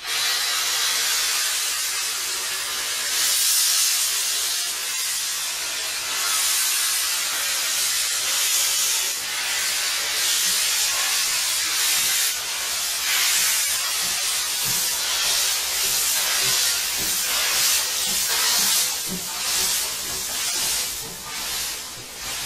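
JNR Class C11 steam tank locomotive blowing off steam: a loud, steady hiss that starts abruptly, then swells and fades in uneven surges that come more often near the end.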